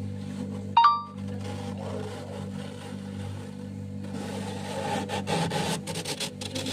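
Freezer frost crunching in a run of irregular crackly crunches over the last two seconds or so, over a steady low hum. A short, loud beep-like tone sounds about a second in.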